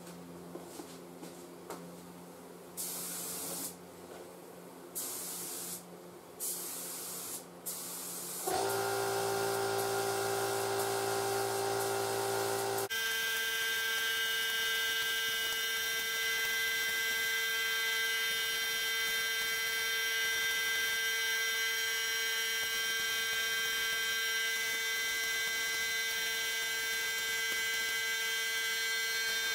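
HVLP paint spray gun hissing in several short trigger pulls. About a third of the way in, a louder steady machine hum with several fixed tones starts and runs on, its tone shifting a few seconds later.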